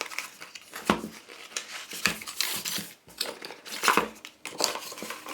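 A product box being opened and its packaging handled: crinkling and rustling with scattered knocks and clicks, the sharpest about a second in and again about four seconds in.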